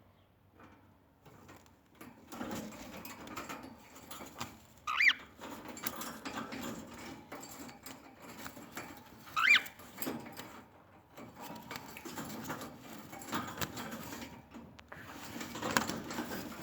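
Cockatiel giving two short, loud chirps, about five and nine and a half seconds in, over ongoing scratchy rustling.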